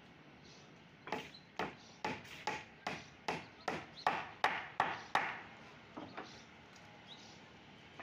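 A hammer driving nails into timber formwork: about a dozen sharp blows at two or three a second, growing louder, then two lighter taps.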